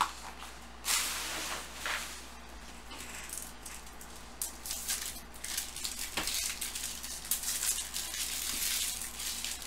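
Foil-wrapped baseball card packs being shuffled and handled, their wrappers crinkling and rustling in quick short crackles that come thicker in the second half.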